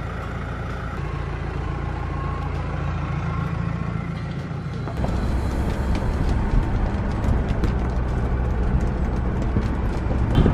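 Mahindra Thar jeep's diesel engine running steadily at idle. About five seconds in the sound changes abruptly to the jeep on the move, heard from inside the cabin: louder engine and road noise.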